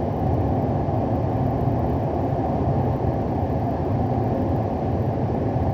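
Steady low rumbling noise that holds an even level throughout, with no separate knocks or tones.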